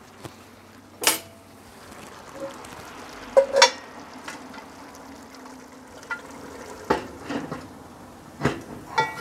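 Pork and vegetables sizzling in a Petromax FT6 cast-iron Dutch oven, with several sharp metal clanks and knocks as the cast-iron lid is set back on with a lid lifter. The loudest is a pair of ringing clanks about three and a half seconds in.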